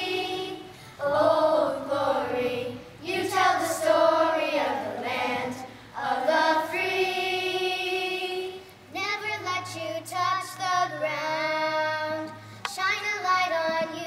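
A group of young girls singing a song together, in sung phrases a few seconds long separated by brief pauses.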